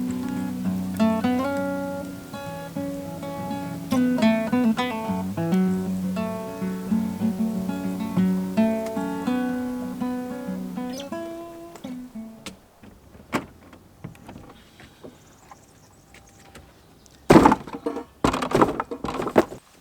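Acoustic guitar music: plucked notes over a low sustained drone, dying away about twelve seconds in. A few loud noises follow near the end.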